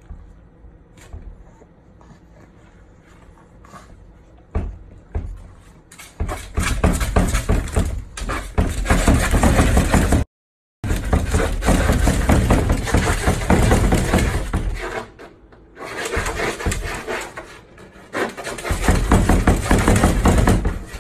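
A pug scratching rapidly at a closed door with its front paws, claws scraping on the door. It starts with a few faint taps, then about six seconds in turns to loud, continuous scratching, with a brief break near the middle and a quieter lull later on.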